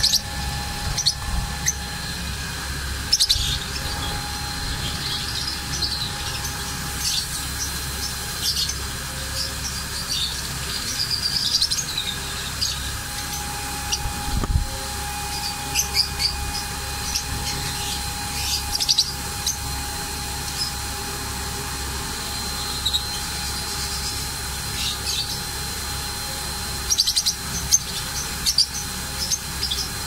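Lovebirds chirping in short, sharp, high calls scattered through the whole stretch, over a steady background hum.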